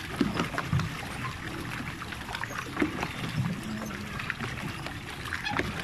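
Water trickling and splashing around a pedal-powered water bike as it is pedalled.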